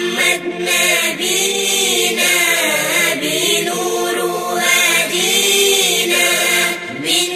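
A chorus of voices singing an Arabic nasheed, the melody rising and falling in phrases over a steady held low tone.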